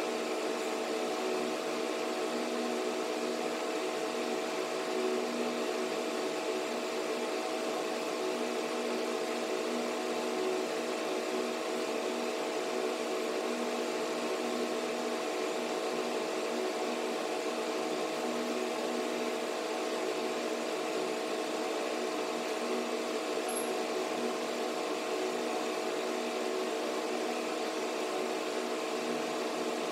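Steady machine hum with several constant tones held throughout, like a fan or air-conditioning unit running.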